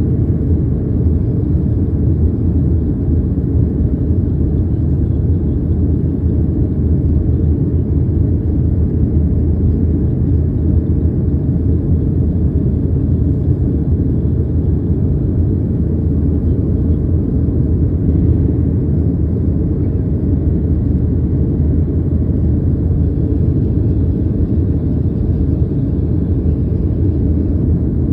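A steady, loud low rumble that does not change.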